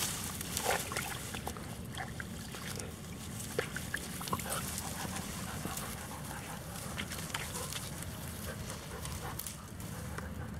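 Yellow Labrador puppies sniffing and pushing through tall grass: scattered crackles and rustling, with a few brief, short puppy noises.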